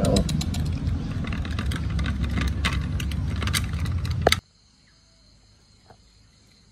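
Puppies eating from an aluminium bowl, many sharp clicks and clinks of teeth and muzzles against the metal over a steady low rumble. About four seconds in it cuts off abruptly to a faint, steady insect trill.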